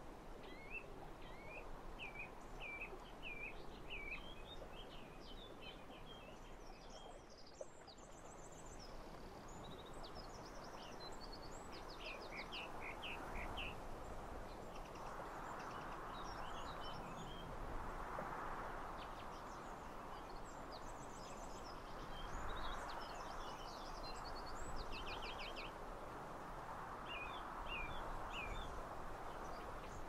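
Wind noise that swells in gusts several times, with small birds chirping and trilling on and off throughout.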